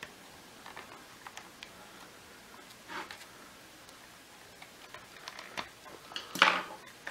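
Light clicks and scrapes of a flathead screwdriver prying at the clipped plastic housing of a Miele vacuum cleaner motor, with a louder clatter about six seconds in.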